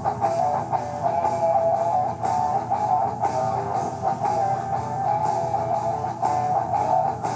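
Guitar-led rock music with a steady beat.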